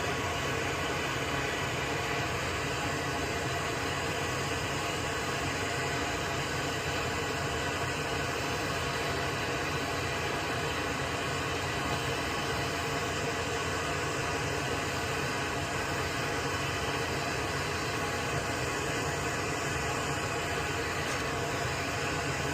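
Steady machine noise: an even hiss with a faint hum, unchanging throughout.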